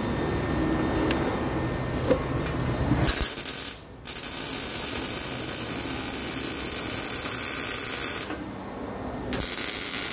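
Wire-feed welder arc crackling and sizzling as it welds a steel exhaust pipe joint overhead. A short burst comes about three seconds in, then a steady run of about four seconds, a pause of about a second, and the arc starts again near the end.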